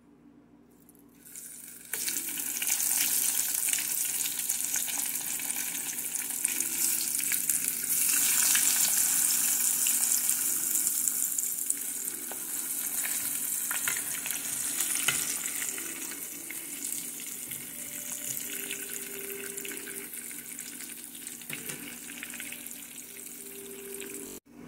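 Dried fish sizzling in hot cooking oil in a pan. The sizzle starts suddenly about two seconds in, as the fish go into the oil. It stays loud with crackling spatters, then eases off gradually over the last third.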